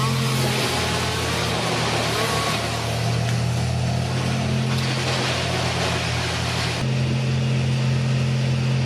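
An engine running steadily, shifting slightly in pitch about half a second in and again near seven seconds.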